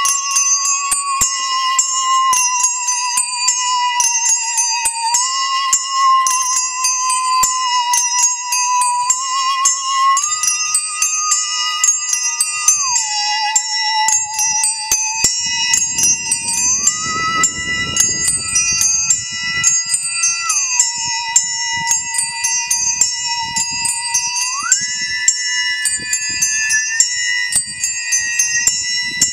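Bowed musical saw sounding a wavering tone with vibrato, holding notes and sliding up and down between them several times, over many small handbells ringing in quick, continuous succession.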